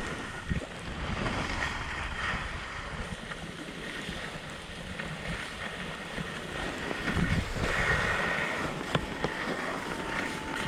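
Wind buffeting an action camera's microphone, an uneven rumbling rush.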